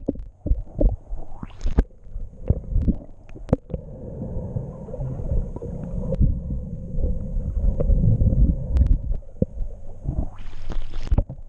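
Underwater sound picked up by a submerged camera: a muffled, low rumbling of moving water with many sharp knocks and clicks scattered through it. Near the end a brief hiss of splashing water rises and cuts off.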